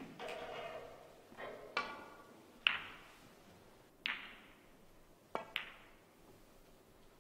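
Snooker balls and cue clicking: a handful of sharp clacks with a brief ringing tail, the loudest about three seconds in. About four seconds in comes a click that fits the cue striking the cue ball, then two quick ball-on-ball clicks just after five seconds.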